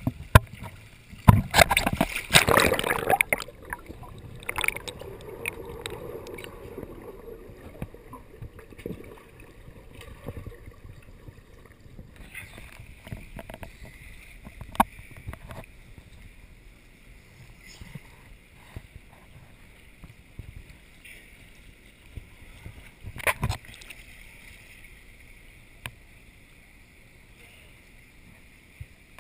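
Pool water splashing and lapping against a camera held at the surface, with a loud burst of splashing about two seconds in and a couple of sharper splashes later.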